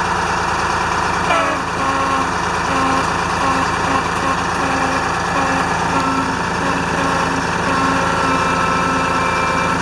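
1976 International fire truck's engine idling steadily. From about a second and a half in, a weak tone breaks in and out about one and a half times a second: the air horns sounding poorly, their diaphragms worn out.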